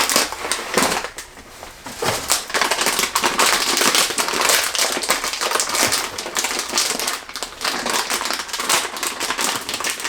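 Plastic snack bag of sour cream and onion crackers being handled and torn open, with a dense, irregular crinkling and crackling that picks up about two seconds in.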